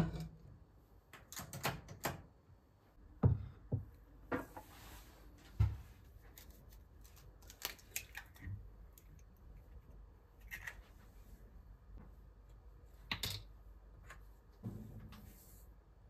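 Kitchen handling sounds at a worktop: scattered knocks, clicks and taps of a bowl, measuring cups and utensils, with an egg cracked and broken into a bowl about eight seconds in.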